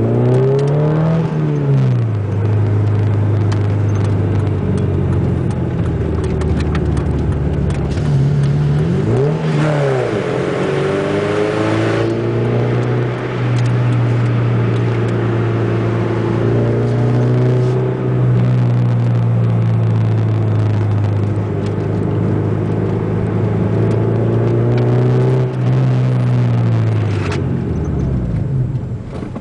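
Ford Zetec four-cylinder engine with a 4-into-1 exhaust header, running loud while the car is driven. The engine note climbs and drops at gear changes near the start and about ten seconds in, holds fairly steady at cruise through the middle, then falls away near the end.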